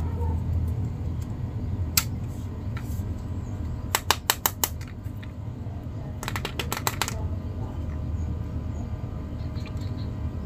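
Sharp plastic clicks from handling a plastic action figure and its clear plastic blister tray: a single click about two seconds in, then two quick runs of clicks around four seconds and six to seven seconds in, over a steady low background rumble.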